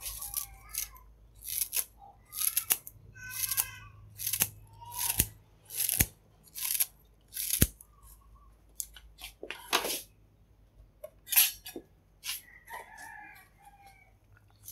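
Kitchen scissors snipping green onions, a run of short, sharp snips roughly every half second to second that thins out after about ten seconds.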